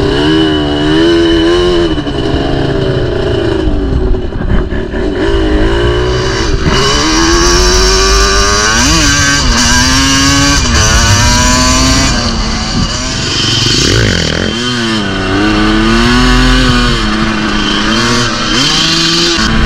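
Dirt bike engine ridden hard, its pitch rising and falling over and over as the throttle is opened and closed through the gears, over a constant rush of noise.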